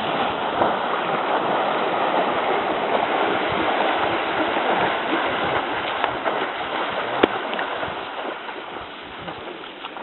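Rushing, splashing water, fading over the last couple of seconds, with one sharp click about seven seconds in.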